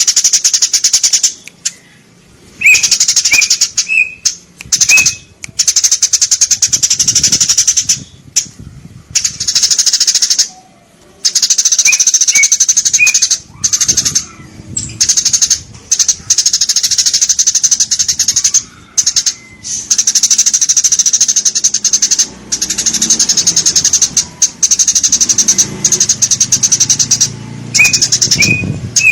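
Eurasian tree sparrows chattering: long bursts of rapid, high-pitched chirps broken by short pauses, with a few clearer single chirps standing out.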